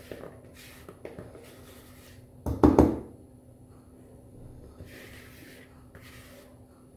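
A silicone spatula scraping thick cake batter out of a plastic mixing bowl into an aluminium cake pan, with soft scraping and handling noises. A quick cluster of knocks comes about two and a half seconds in and is the loudest sound.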